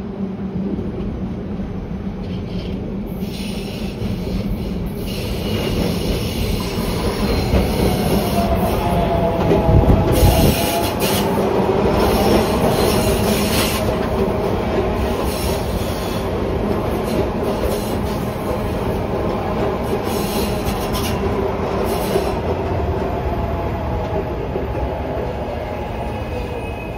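SEPTA Market-Frankford Line train running through the station, its wheels clacking over the rail joints and squealing, with a steady whine. The sound grows loudest about ten seconds in, then eases off slowly.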